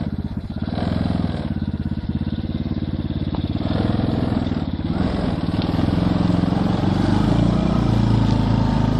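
Small engine of a mini Jeep-style off-road kart running hard under load as it climbs a muddy slope. Its note shifts up and down several times and grows slightly louder.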